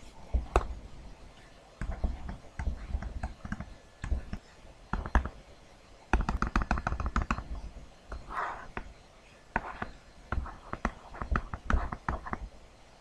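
Stylus tapping and scratching on a tablet PC screen while writing, an irregular run of clicks and knocks with dull thuds, and a dense flurry of quick strokes about six seconds in.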